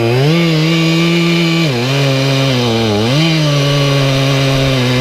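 Chainsaw at full throttle cutting into a tree trunk, the engine pitch dipping under load and picking back up about three times as the bar works through the wood.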